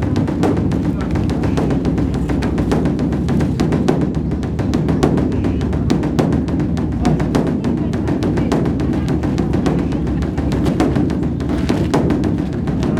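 Beopgo, a large Korean Buddhist dharma drum, beaten in a fast, unbroken stream of strokes over a low, resonant drone.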